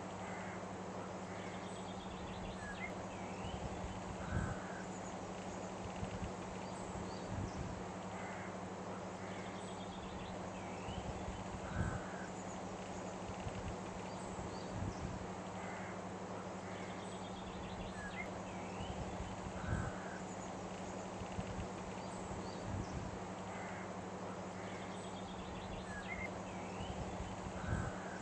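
Outdoor ambience of short chirping animal calls over a steady low hum and hiss, with soft low thumps every few seconds; the same pattern repeats about every eight seconds, like a loop.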